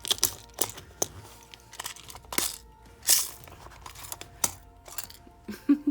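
Small nail-art rhinestones and charms clicking and rattling in a plastic storage grid as they are handled, with plastic packaging crinkling: a quick, irregular run of short sharp clicks and rustles.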